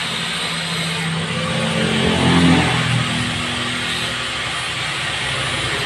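A motor vehicle engine that swells and rises in pitch, loudest about two and a half seconds in, then fades, over steady background noise.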